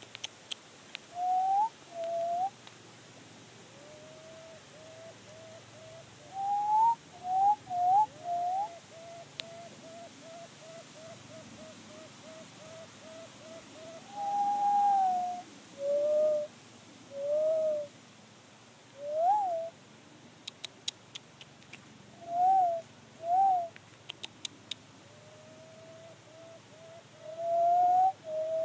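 Ruffed grouse giving soft whistled calls: short up-slurred notes, then a long run of quick, evenly spaced soft notes. After that come separate louder, drawn-out notes.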